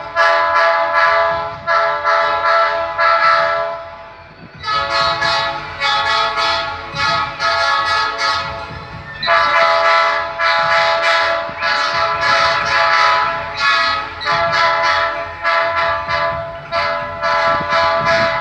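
Diesel locomotive air horn sounded in many short, rapid toots on the same chord, in three runs with brief pauses about four and nine seconds in. A faint low engine rumble lies under it.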